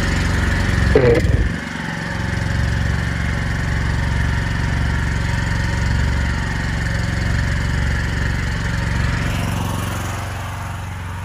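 Gasoline engine of a pressure washer rig running steadily. Its lowest note drops out and the level falls a little about a second and a half in, then it runs on evenly.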